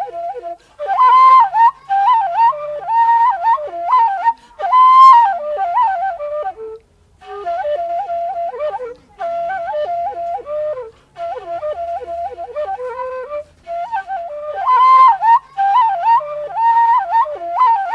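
Background music: a solo flute melody played in short ornamented phrases, with brief pauses between them.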